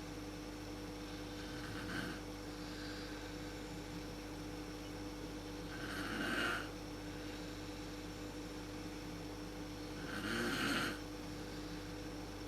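A woman snoring in her sleep, about one snore every four seconds: a faint one about two seconds in, then two louder ones near the middle and near the end, over a steady low hum.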